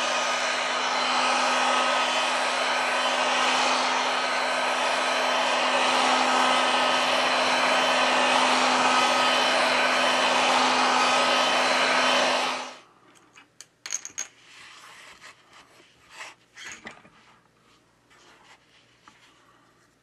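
Hot air gun blowing steadily with a motor hum, heating the tablet's screen to soften the adhesive. It cuts off suddenly about two-thirds of the way through, followed by faint clicks and rubbing as the tablet is handled.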